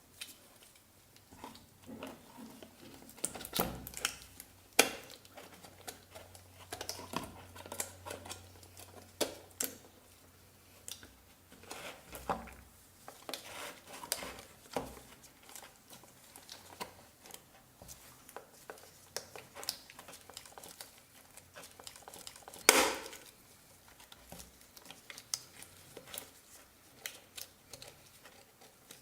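Irregular clicks, taps and light knocks of small parts and tools being handled while a blender is worked on, with one louder knock about three-quarters of the way through.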